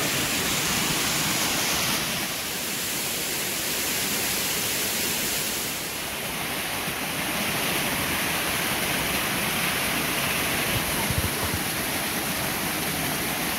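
Waterfall: a steady rush of water pouring with force over rock ledges and splashing on the boulders below.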